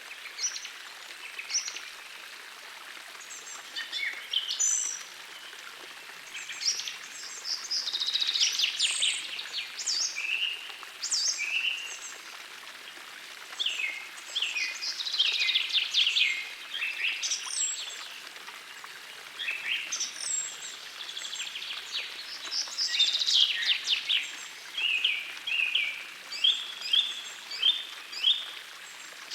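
Songbirds singing in bursts of quick falling notes and trills, over the steady rush of a gentle forest stream.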